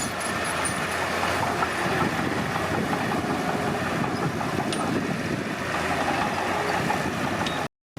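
Komatsu D31P bulldozer running steadily at work, a continuous heavy-machine rumble. The sound cuts off abruptly just before the end.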